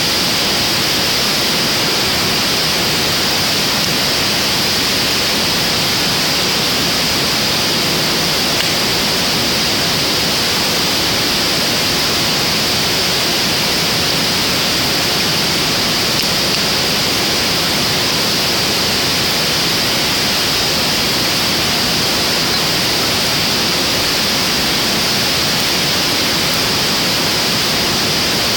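Driftwood fire burning in a fire pit: a steady, even hiss with hardly any crackle.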